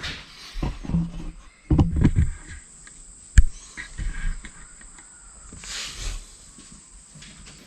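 Hand-work noise: knocks and thuds of hardware and tools being handled, with one sharp metallic click about three and a half seconds in, then quieter scraping.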